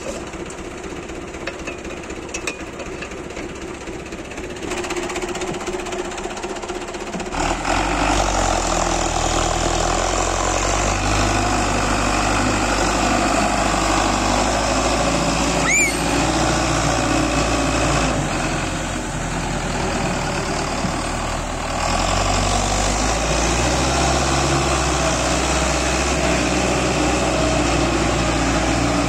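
Belarus MTZ-510 tractor's diesel engine running steadily at idle, then revving up about seven seconds in and working hard under load as it pulls a trolley heaped with earth. A brief high rising squeal cuts through about halfway.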